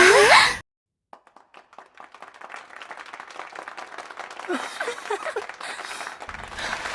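A brief loud vocal burst, then after a moment's silence a group starts clapping, a few scattered claps at first, swelling into steady applause with a few voices calling out.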